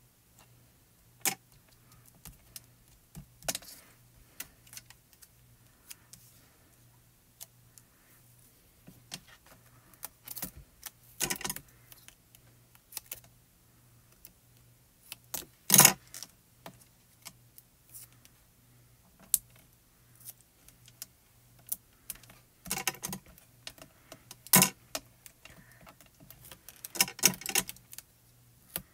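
Small sounds of hands working with paper craft supplies: scattered clicks, taps and rustles, with a few short runs of snipping as small scissors cut foam tape. The sharpest click comes about midway.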